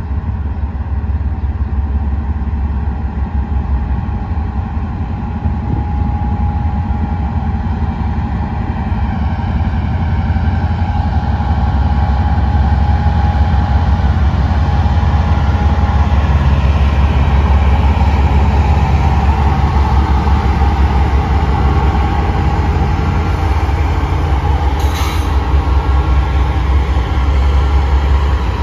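Diesel locomotive engines running and building up as the train starts to move off. A steady low drone grows louder about halfway through, with a brief click near the end.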